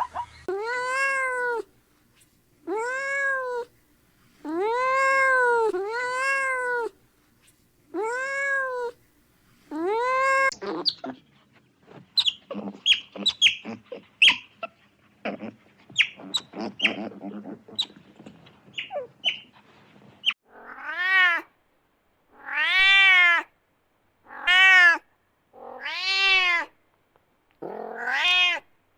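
Cat meowing: a run of about five drawn-out meows, then several seconds of short scattered clicks and chirps, then about five more meows.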